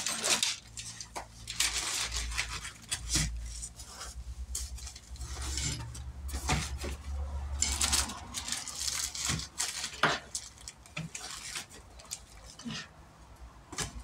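Small hard objects being handled, clinking and knocking irregularly, as the contents of a salvaged first-aid kit are sorted through and worked on.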